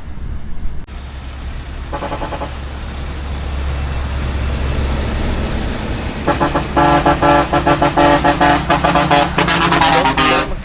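Heavy truck engine rumbling under load on a climb, with a short horn blast about two seconds in. From about six seconds in, a truck horn sounds loudly in a rapid string of short blasts for about four seconds.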